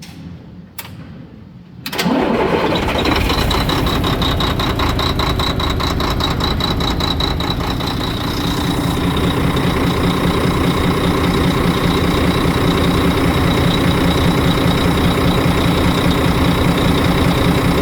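Volvo FH12 truck's 12-litre six-cylinder diesel started about two seconds in, catching at once and settling into a steady idle. The engine has a knock and has been misfiring, and is being started to check it after an injector swap.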